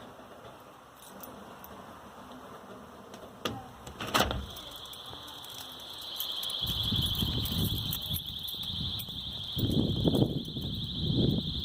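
Two sharp clicks, then about four seconds in a home security system's alarm siren starts a steady, high-pitched, cheap-sounding tone that keeps going. From about six and a half seconds in, rumbling noise sounds underneath it.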